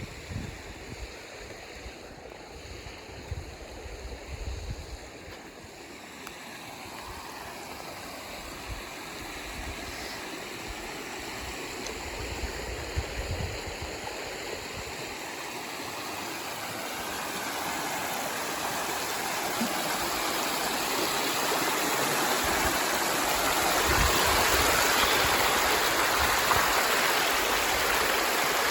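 Creek water rushing, an even hiss that grows steadily louder.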